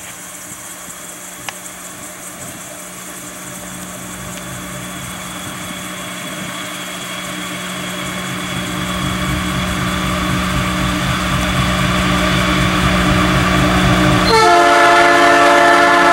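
Diesel freight locomotive approaching, its engine growing steadily louder, then about 14 seconds in it sounds its horn, a held chord of several notes that is the loudest part.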